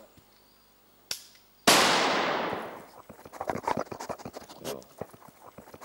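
A single loud gunshot that echoes away over about a second, preceded by a sharp click. It is followed by irregular light rustling and crackling.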